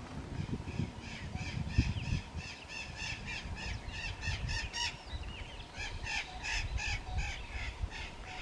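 White-tailed hawk calling a rapid series of high, evenly spaced notes, about four a second, in two bouts: the first from about a second in, the second starting a little after the middle. A low, uneven rumble runs underneath.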